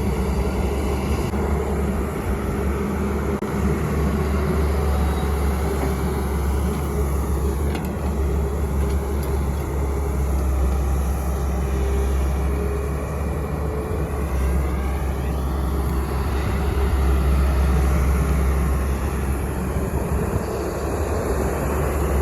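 Heavy diesel machinery at a road-building site running steadily: a JCB digger's engine working as it loads soil into trucks, a continuous low drone. Near the middle come a couple of fainter, higher whines that dip and rise again.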